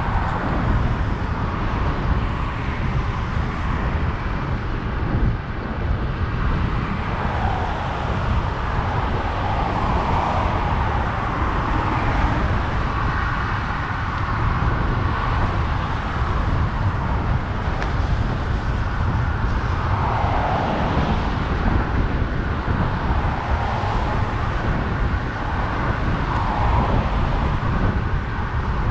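Road traffic on a busy road alongside, with cars swelling past and fading every several seconds. Under it runs a constant low rumble of wind on the microphone of the moving bicycle camera.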